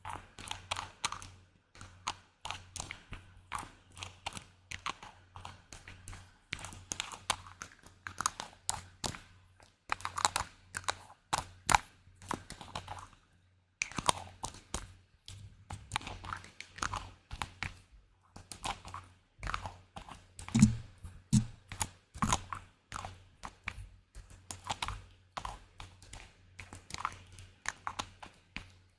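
ASMR tapping: quick, irregular taps and clicks on hard objects, several a second, with a brief pause about halfway through.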